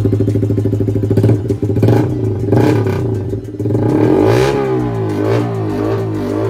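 Yamaha MT-15's 155 cc single-cylinder engine running through an aftermarket slip-on silencer: a steady idle, then several throttle blips near the end, the revs rising and falling.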